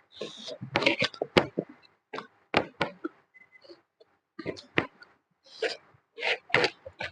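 Close-up eating sounds: wet chewing, slurping and lip smacking, in irregular sharp clicks and short bursts, as spicy chicken feet and mutton curry are eaten.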